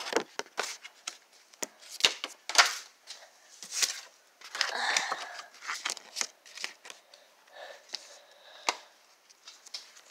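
Paper rustling and crinkling as it is handled close to the microphone, with a scatter of sharp clicks and scrapes and a longer rustle about five seconds in.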